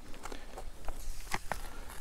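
Hiking shoes stepping and scuffing on sandstone and loose grit while climbing down a steep rocky slope: a handful of short, uneven steps.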